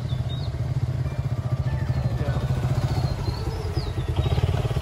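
Motorcycle engines running at low speed as bikes ride slowly up close, with a fast, steady engine pulse. Faint high chirps sound now and then over them.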